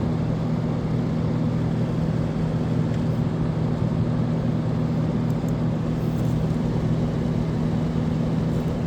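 1987 Montgomery Wards by Frigidaire window air conditioner running on fan only, compressor still off: the fan motor's steady low hum under an even rush of air.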